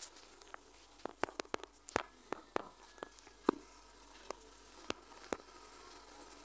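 Faint, irregular tapping of fingers typing on a smartphone's touchscreen keyboard, about fifteen quick clicks, stopping a little after five seconds in.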